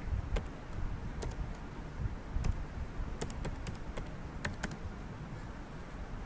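Computer keyboard being typed on: irregular key clicks, stopping about three-quarters of the way through, over a steady low background rumble.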